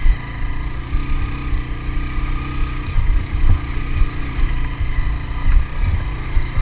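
Suzuki GS 150 motorcycle's single-cylinder engine pulling under load up a steep, rocky dirt climb, with irregular low thumps throughout.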